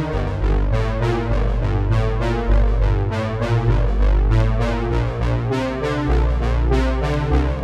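Background music: an instrumental electronic track with synthesizer and keyboard chords over a steady beat and heavy bass.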